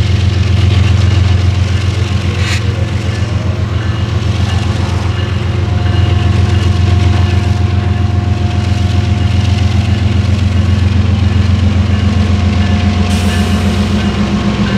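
Union Pacific GE ES44AC diesel locomotive passing close by at the head of a double-stack container train, its engine running with a loud, deep, steady throb. There is a sharp clack about two and a half seconds in and a thin steady whine for a few seconds in the middle, and wheel and rail hiss rises near the end as the locomotive draws level.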